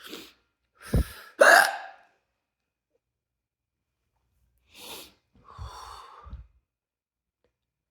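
A person hiccuping during a long bout of hiccups. Two sharp hiccups come close together about a second in, the second the loudest. After a quiet gap, softer breathing and hiccup sounds follow between five and six and a half seconds in.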